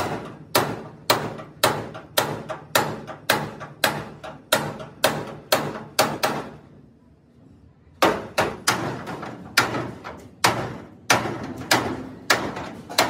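Hand hammer beating the bent steel frame of a damaged excavator cabin to straighten it: sharp metal blows about twice a second. The blows stop for about a second and a half midway, then resume a little faster and more unevenly.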